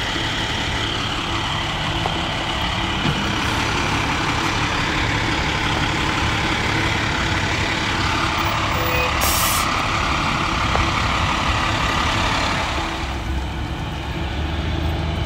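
Type 3 wildland fire engine's diesel engine running with a steady rumble, and a short air-brake hiss about nine seconds in.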